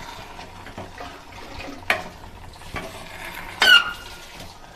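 Steel ladle stirring a thick semolina-and-jaggery filling in a stainless steel pot over a low flame, with a soft steady sizzle and occasional scraping strokes. About three and a half seconds in, the ladle knocks the pot in a loud clink that rings briefly.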